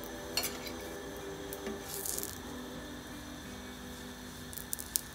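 A metal spoon clinking and scraping lightly against a flat iron tawa and the flatbread as ghee is spread over it: a few sharp clicks and a short scrape. Faint soft background music underneath.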